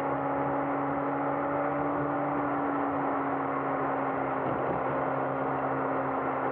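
Steady in-car road and engine noise from a moving car, sped up to triple speed so that it becomes an even hiss with a constant humming drone.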